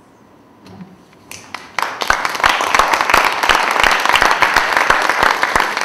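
Audience applauding. A few scattered claps come in about a second and a half in and quickly swell into steady, dense applause.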